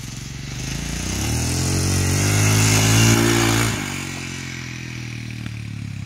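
Royal Enfield Himalayan's single-cylinder engine revving as the motorcycle rides up and past, rising in pitch and loudness to a peak about three seconds in, then dropping in pitch and fading as it rides away.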